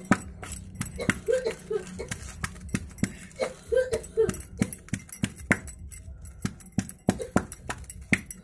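A pounding stick knocking in a steel bowl, in repeated uneven strikes about two or three a second. It is crushing roasted bitter gourd with onion, garlic and chili into a paste for chutney.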